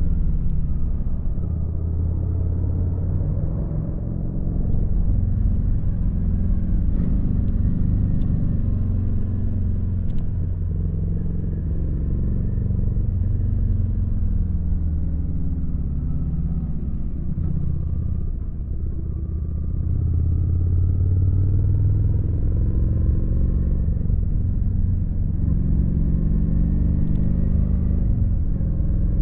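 Kawasaki VN900's V-twin engine running while riding, its pitch rising and falling gently with the throttle. Twice the level dips briefly as the revs drop, then picks up again.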